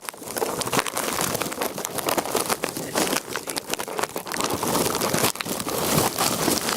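Plastic wrapped around a handheld camera crinkling and rustling against the microphone in a dense, irregular crackle.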